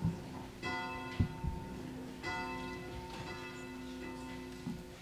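Church bell tolling: two strokes about a second and a half apart, each ringing on and slowly fading, with a few soft low thumps in between.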